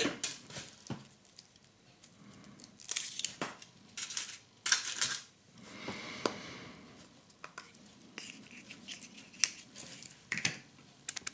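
Foil wrapper being peeled and crinkled off a Kinder Surprise chocolate egg, then the thin chocolate shell being broken open by hand. Near the end come light, quick clicks as the yellow plastic capsule inside is handled.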